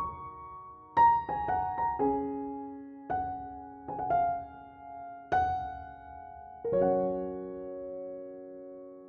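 Slow, gentle piano music: single notes and soft chords struck a few at a time and left to ring, the last chord about two-thirds of the way through fading slowly.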